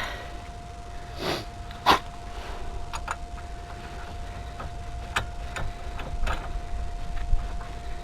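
Scattered metal clicks and knocks of a 36 mm socket and its drive tools being handled and fitted together. The loudest knock comes about two seconds in and lighter clinks follow every second or so, over a faint steady hum.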